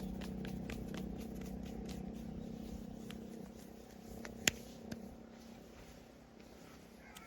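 A joint cracking once, sharp, about four and a half seconds in, with a smaller pop half a second later. A low steady hum fades underneath, and faint light clicks come from hands rubbing.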